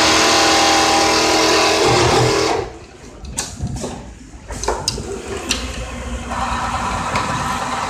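Richpeace automatic template sewing machine stitching at full speed with a steady high hum, cutting off abruptly about a third of the way in. A few sharp clicks and clunks follow, then a quieter steady machine noise resumes near the end, the short pause between pieces in its sewing cycle.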